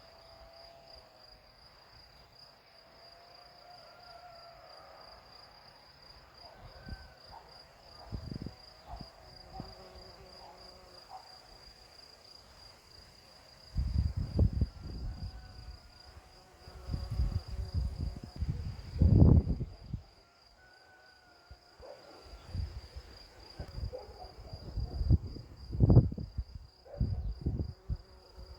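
Steady, finely pulsed high-pitched chirring of crickets, with bees buzzing among the flowers. Several louder low bursts come around the middle and again near the end.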